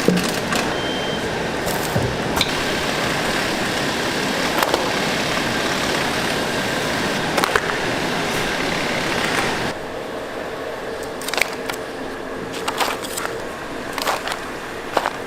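Restaurant kitchen cooking noise: a steady rushing noise for about ten seconds that then drops away, with scattered clinks and knocks of utensils.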